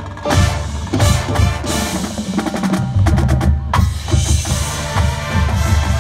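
College marching band playing, with brass holding notes over a drumline and front-ensemble percussion, the drums prominent. A bright crash-like wash rings out about four seconds in.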